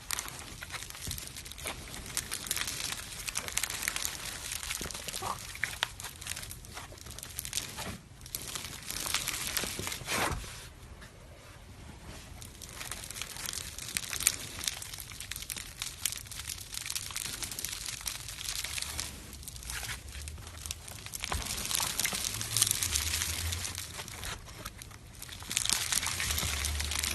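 Foamy slime being worked and mixed by hand: a dense crackle of small pops and squishes that swells and eases in waves.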